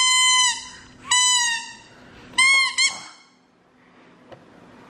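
A toddler blowing a toy plastic horn: four high-pitched toots, each about half a second or shorter, the last two close together, each dipping in pitch as it ends.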